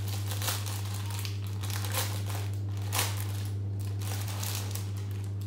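Plastic packaging crinkling and rustling irregularly as a wrapped package is handled and opened, over a steady low hum.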